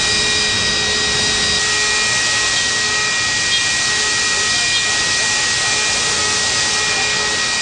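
Mazak Nexus 700D-II vertical machining centre milling metal with a small-diameter end mill at high spindle speed: a steady hiss with thin, steady high-pitched whine tones.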